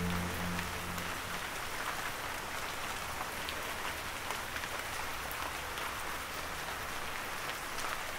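Steady rain pattering, with scattered ticks of single drops; a soft music track fades out about a second in.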